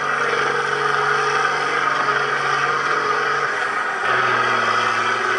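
Military 6x6 cargo truck engine running under load as the truck churns through a muddy ditch. The steady engine note dips slightly about three and a half seconds in, then grows louder.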